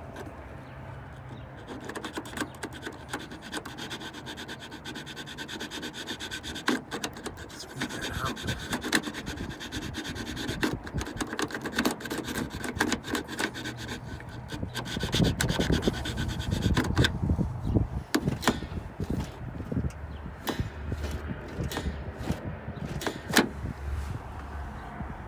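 A small hand file rasping back and forth on the plastic slide of a sliding-door latch button, in many short, irregular strokes with small clicks, filing it down so the sticking slide moves freely.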